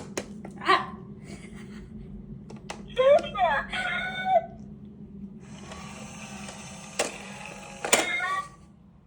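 A battery-powered push button playing back short sounds when pressed. Gliding, voice-like sounds come about three seconds in, then a longer buzzy sound with two sharp clicks of the button near the end.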